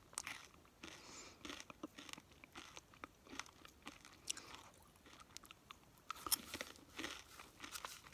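Close-miked chewing of crunchy food: irregular sharp crunches and small mouth clicks, with a denser run of louder crunches about six seconds in.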